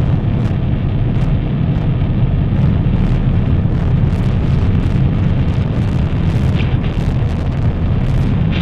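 Dark-ambient noise-drone music: a dense, steady wall of low rumbling noise with faint scattered crackles and a couple of short whistling glides near the end.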